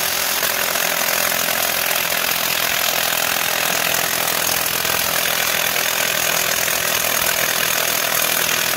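Milwaukee M12 Fuel cordless impact wrench hammering continuously on an engine-mount bolt through a couple of socket extensions, without breaking the bolt loose.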